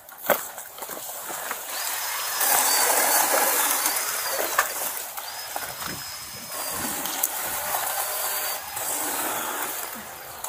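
Leafy branches and fern fronds rustling and scraping against a body-worn camera as it pushes through downed tree limbs. A dense rustling hiss rises about two seconds in, with a few sharp snaps and clicks.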